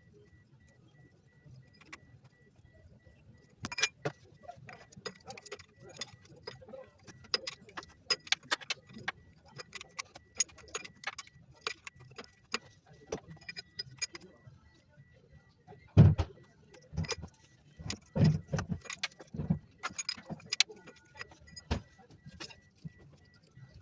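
Hand tools and metal parts clinking and rattling in quick irregular clicks, with a few heavier knocks about two-thirds of the way through.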